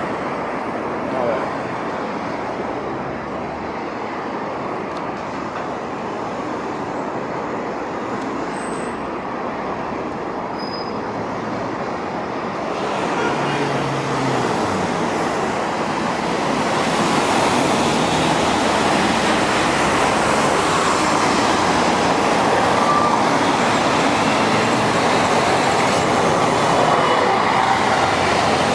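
Steady road traffic noise of cars and buses passing on a multi-lane city street, growing louder about halfway through.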